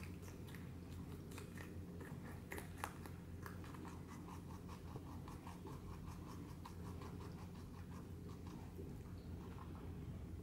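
Rabbits nibbling and chewing a red hot pepper: a fast run of small, crisp bites and chewing clicks, with a couple of louder crunches about three seconds in.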